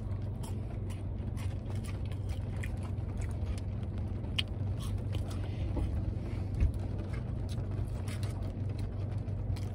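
Chewing crispy French fries: small irregular crunches and mouth sounds over a steady low hum in the car's cabin.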